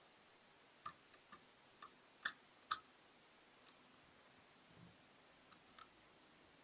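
Small, sharp clicks and taps from handling a ThinkPad T420 laptop's parts during disassembly, about eight of them spread over the first few seconds, the loudest two close together near the middle, otherwise near silence.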